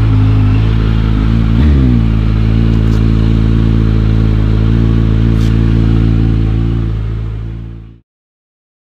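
Kawasaki Z900 inline-four with an Arrow exhaust running at steady revs under way. About two seconds in the pitch dips and comes back quickly, as at a gear change. The sound cuts off abruptly about a second before the end, leaving dead silence.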